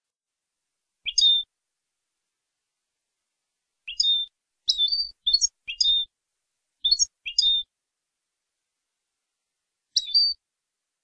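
European goldfinch singing short, clear rising chirp notes: one about a second in, a quick run of six in the middle, and one more near the end, with silent gaps between them.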